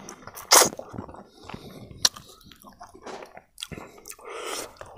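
Close-up chewing of a mouthful of rice eaten by hand with pig feet: wet, irregular mouth sounds with a few sharp clicks, the loudest about half a second in.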